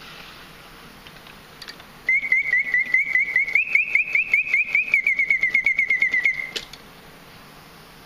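Antique German mechanical singing bird's whistle chirping a fast trill, about eight notes a second, starting about two seconds in. The pitch lifts slightly mid-song and then settles, and the song cuts off with a click from the clockwork movement.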